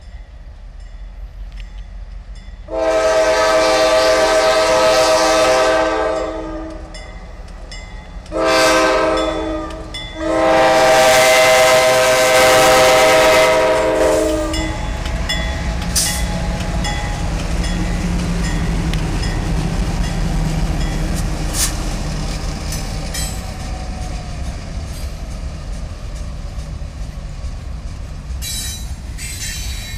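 Freight locomotive air horn sounding a chord: a long blast, a short one, then another long one. The locomotives then pass close with their diesel engines running and the wheels clicking on the rails.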